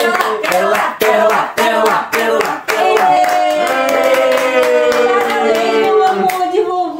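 Hands clapping along in a steady rhythm, about three claps a second, while voices sing a Portuguese worship song, holding long notes that slowly drop in pitch.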